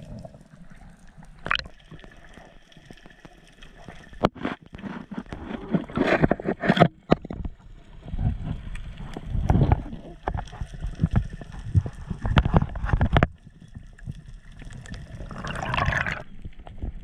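Underwater noise picked up by a camera in its housing during a freedive: water rushing and gurgling around the housing in swells, with scattered sharp clicks and knocks. A burst of bubbles near the end.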